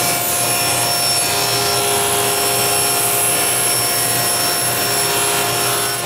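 Table saw running with its dust collection, cutting a diagonal through a sheet of 1/8-inch hardboard: a steady loud whine over a low hum, with a further steady tone joining about a second in.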